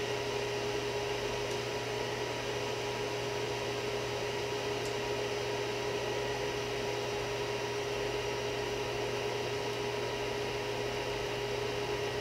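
Cooling fans of a Creality CR-10S 3D printer running with a steady whir and hum, several constant tones in it.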